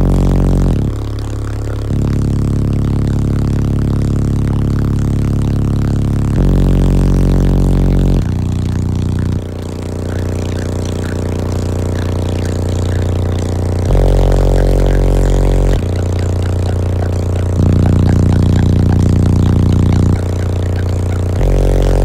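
A wall of fifteen 15-inch car subwoofers playing loud, deep bass notes. Each note is held for one to two seconds before stepping to another pitch.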